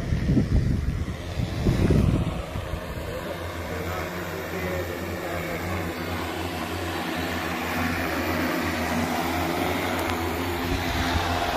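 Multirotor agricultural spray drone flying overhead, its propellers giving a steady, pitched hum that grows a little louder towards the end. Two loud low rumbles come in the first two seconds.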